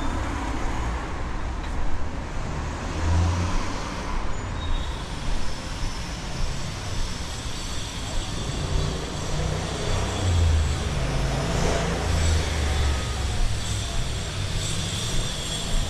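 City road traffic: vehicles passing with a steady engine and tyre rumble that swells a few times as vehicles go by.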